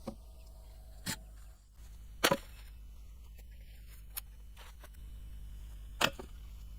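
Three sharp chopping knocks, spaced a second or more apart, the one about two seconds in the loudest and doubled, with a faint tick between.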